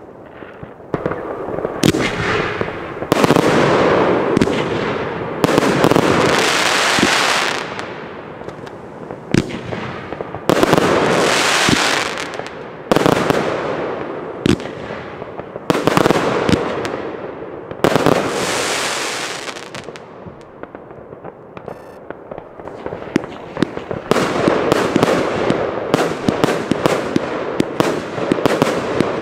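Consumer firework batteries firing: sharp launch shots and bursts, each followed by a noisy one-to-two-second tail from the burning stars. There is a short lull about twenty seconds in, then a fast run of shots near the end.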